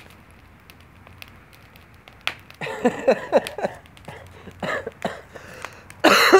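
A man's wordless vocal sounds, then a harsh cough about six seconds in. Faint clicks come in the quieter first couple of seconds.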